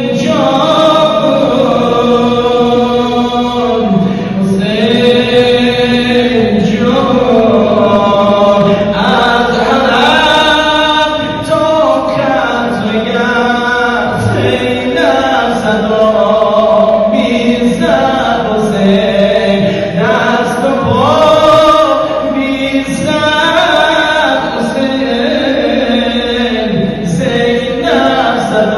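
A man chanting a noha, a Shia lament for Imam Husayn, into a microphone: long held notes that bend and slide, with no instruments.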